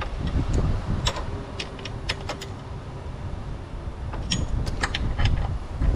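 Scattered light clicks and clinks at irregular spacing as hands handle a hose and the bolted catch can bracket in the engine bay, over a low rumble.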